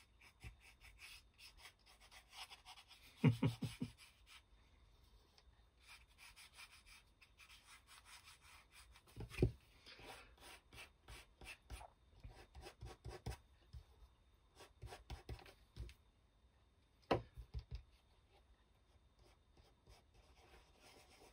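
Fingertip rubbing paint onto a laser-cut MDF piece: faint dry rubbing and scratching, broken by a few soft knocks about three, nine and seventeen seconds in.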